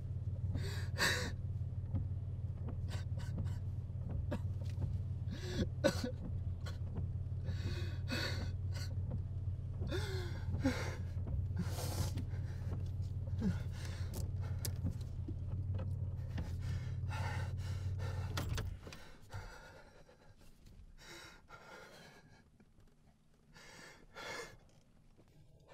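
A man breathing heavily in ragged gasps, a sharp breath every second or two. A steady low hum lies under them and cuts off suddenly about three-quarters of the way through. After that his breathing is quieter, with one louder breath near the end.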